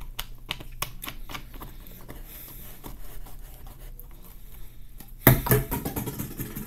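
Plastic soda bottle being handled, its cap screwed on with a run of small clicks and crinkles. A louder knock and rustle comes a little after five seconds in as the bottle is put aside.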